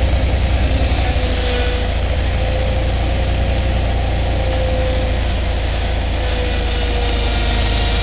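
Skid-steer loader engine idling steadily nearby, a loud, even low rumble.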